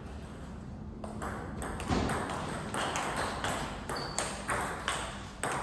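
Table tennis rally: a plastic ball clicking off bats and table in quick alternation, about two to three hits a second, starting about a second in.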